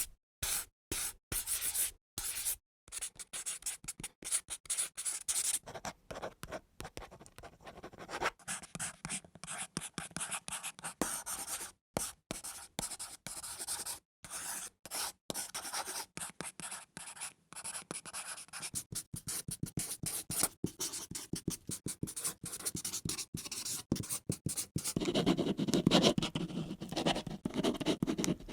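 Quick, irregular scratching strokes with short pauses between them, heavier and louder near the end.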